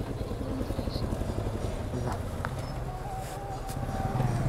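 Yamaha motorcycle engine running at low speed as the bike rolls slowly and pulls in to the curb. A faint steady higher tone sounds in the last second and a half.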